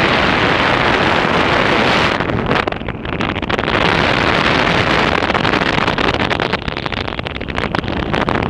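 Strong wind rushing and buffeting over the microphone during a steered turn under an open parachute canopy, easing briefly about two and a half seconds in.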